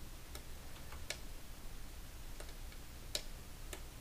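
Faint, scattered single clicks of a computer mouse, about five spread over four seconds, over a low steady hum.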